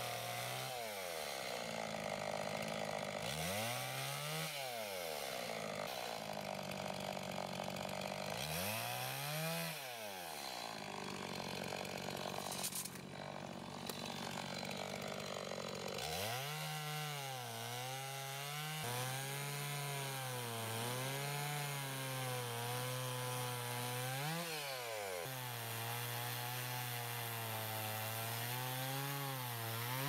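Two-stroke chainsaw cutting a log into firewood rounds. It is revved up and let back down three times in short bursts, then held at high revs through a long cut in the second half, its pitch wavering as the chain bites.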